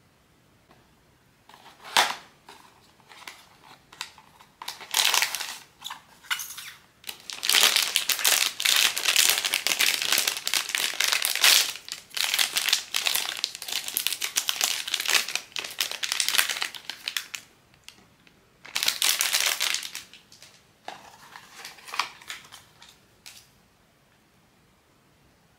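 Crinkling and crumpling of blind-box packaging being handled and opened, in bursts with a long dense stretch in the middle, after a sharp click about two seconds in.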